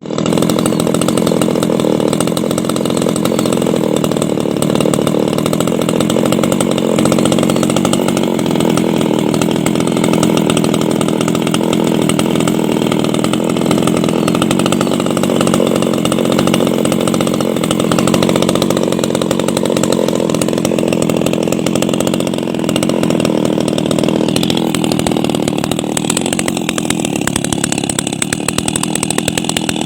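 Maruyama MCZ300 small two-stroke pruning chainsaw running steadily at high revs.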